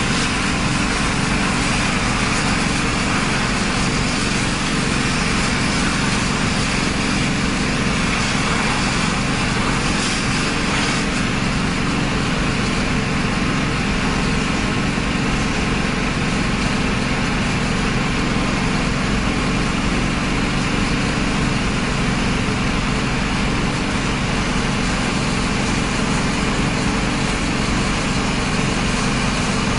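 An engine running steadily at constant speed, with a continuous hiss from the high-pressure water jet of a fire hose.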